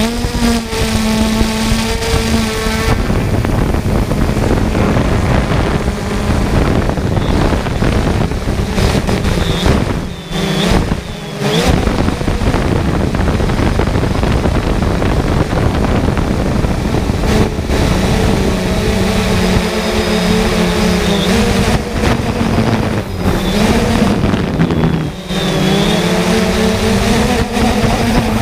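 3DR Solo quadcopter's brushless motors and propellers buzzing steadily, heard close up from its onboard camera, mixed with heavy wind noise. The pitch bends down and back up a few times as the drone changes speed, and the sound briefly drops out about ten seconds in and again near twenty-five seconds.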